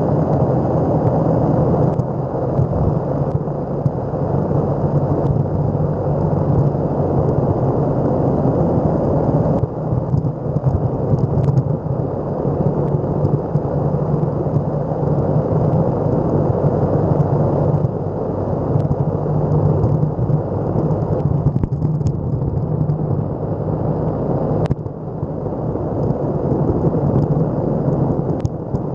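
Electric skateboard's wheels rolling fast over asphalt, a steady, loud rumble with wind noise on the board-mounted microphone.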